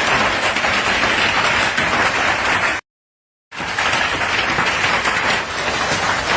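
Hail pelting down hard, a dense, even clatter of countless impacts. It cuts out abruptly to silence for under a second about three seconds in, then comes back just as loud.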